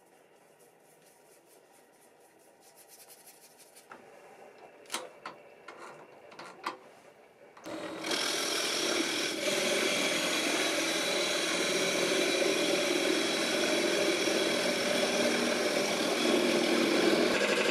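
Quiet handling with a few sharp clicks and knocks, then, a little under halfway through, a wood lathe starts up and runs steadily, spinning a bowl.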